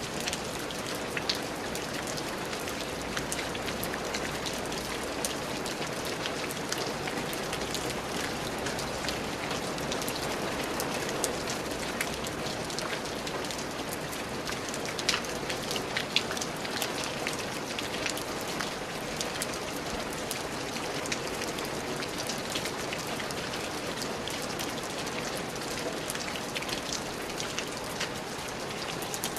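Steady rain falling on a surface, an even hiss with many separate drops ticking sharply through it.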